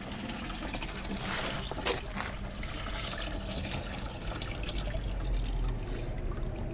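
Engine coolant draining from the Mini Cooper's radiator, a steady trickle of liquid.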